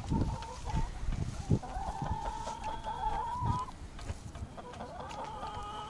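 A flock of laying hens clucking and calling. There is one long wavering call about two seconds in and more calls near the end, with a few short low thumps.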